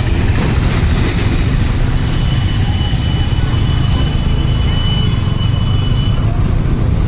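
Motorcycle running along the road, a steady low engine rumble mixed with wind rush on a helmet-mounted microphone. A thin, steady high tone sounds from about two seconds in until about six seconds.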